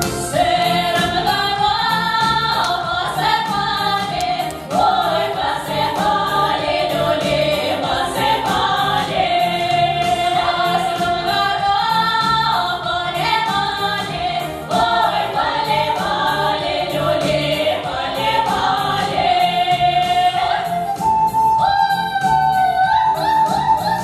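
Female folk vocal ensemble singing a Russian folk-style song together, several voices at once, over instrumental accompaniment with a steady beat. Near the end the voices slide upward in a few rising swoops.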